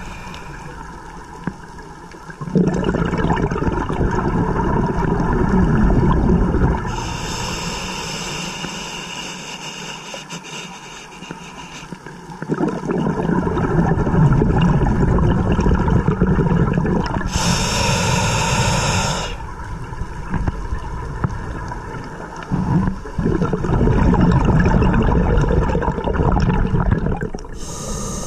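Scuba diver breathing through a regulator: a hissing inhale, then a long bubbling, gurgling exhale, repeating in slow cycles, with three exhales and two and a half inhales.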